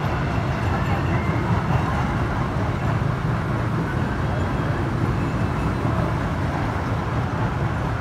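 Steady low rumble of outdoor background noise with no distinct events.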